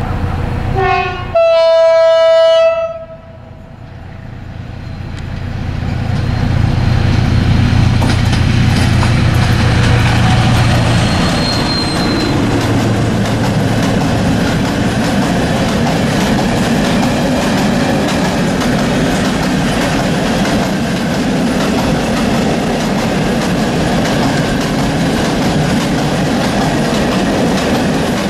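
SM42 diesel shunting locomotive sounds its horn, a short note and then a longer, louder one. It then approaches and runs past hauling a long train of Talbot-type hopper wagons, growing louder as it nears, after which the wagons roll by with a steady clickety-clack of wheels over the rails.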